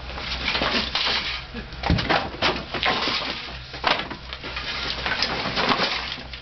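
Broken ceramic floor tiles and wood scraps clattering and knocking on a concrete floor as they are picked up and handled, with a heavier thump about two seconds in.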